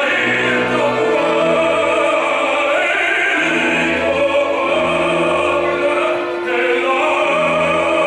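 Live opera: a baritone singing an aria over an orchestra, in long sustained notes.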